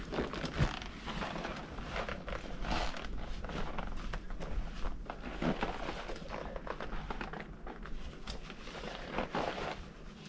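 Rustling and scuffing of a hiking rucksack being lifted onto the back and its straps adjusted, with irregular knocks and shuffling steps on gravel.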